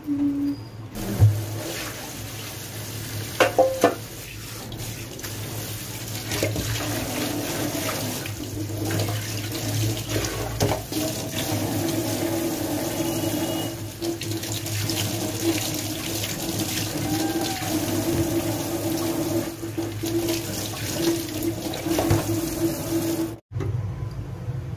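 Kitchen tap running onto boiled fusilli pasta in a plastic colander in a steel sink, rinsing it. There are a few sharp knocks near the start, and the water stops suddenly near the end.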